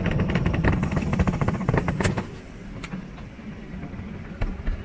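Class A motorhome's bedroom slide-outs retracting on their electric motors: a steady low hum with rapid clicking. It stops about two seconds in as the slides close fully.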